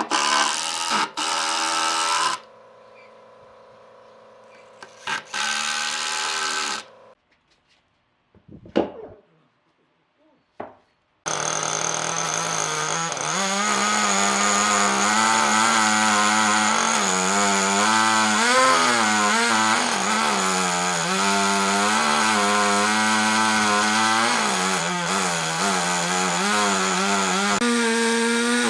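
A chainsaw running and cutting into wood, its pitch wavering as the load changes. It comes in about a third of the way through, after some short broken sounds and a few seconds of silence.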